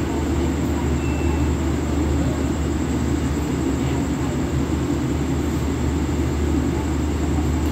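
Express passenger train standing at the platform, its machinery running with a steady low hum that does not change.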